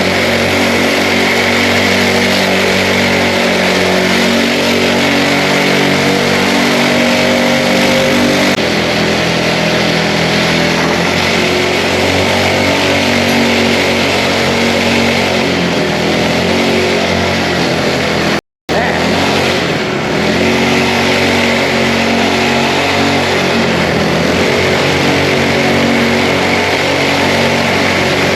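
A mini bike's small engine running continuously, its pitch shifting up and down with the throttle. The sound drops out for a split second about two-thirds of the way through.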